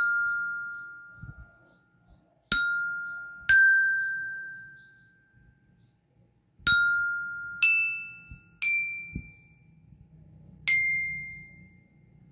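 Bell lyre's metal bars struck one at a time with a mallet, picking out a melody slowly: seven single notes a second or more apart, each ringing out and fading before the next.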